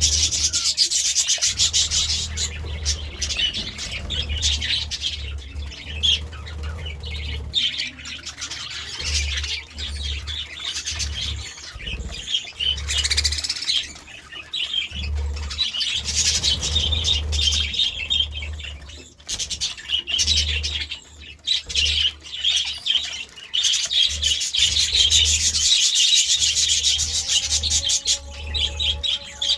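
Budgerigars chirping and warbling in a dense, continuous high chatter, with a low hum underneath.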